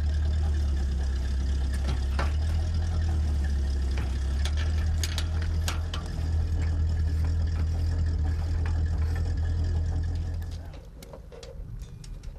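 An engine idling steadily, a deep low hum, with scattered metal clicks and knocks from the steel pipe being handled at the well head. The engine sound cuts off near the end.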